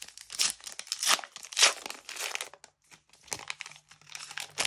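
Foil wrapper of a Panini trading-card booster pack being torn open and crinkled by hand: a quick, irregular run of rustles and tearing.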